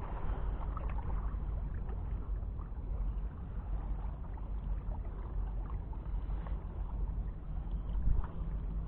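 Steady low rumble of harbour background noise.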